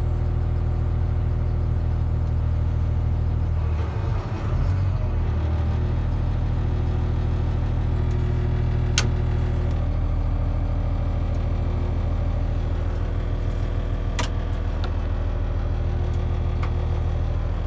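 Cat wheel loader's diesel engine idling steadily, heard from inside the cab while it warms up, with a couple of sharp clicks partway through.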